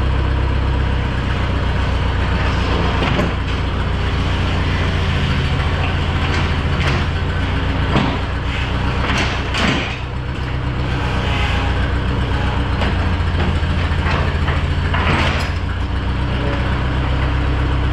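Bobcat skid-steer loader's engine running steadily under the operator, with several sharp metallic clanks over it as the chained plow moldboard is lowered.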